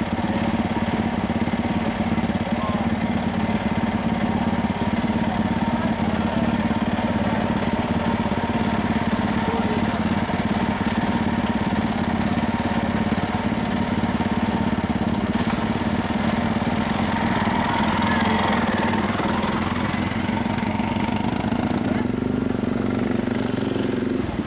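Motorcycle engine of a trials sidecar outfit idling steadily.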